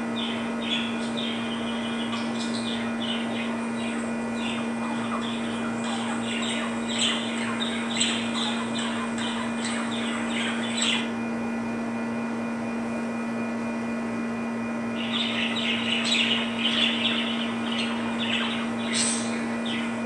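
Budgerigars chirping and warbling in rapid runs of short chirps. They stop about halfway, then break into a denser burst of chirping about three quarters of the way through, with a sharp call near the end, over a steady low hum.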